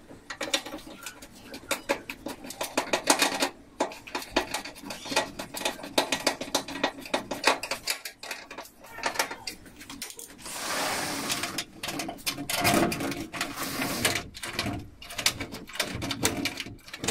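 Screwdriver working at a sliding door's metal frame: many quick metallic clicks and scrapes, with two longer rasping scrapes about ten and thirteen seconds in.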